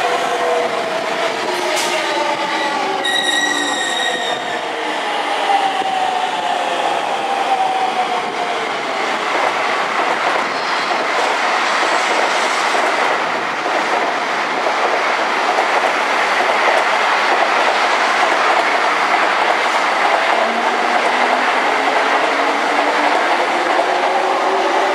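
Electric commuter trains at a station platform: a falling motor whine as a train slows, with a short high-pitched tone about three seconds in. Then comes steady wheel and rail noise with clatter, and near the end a rising motor whine as the JR E231 Yamanote Line train pulls away.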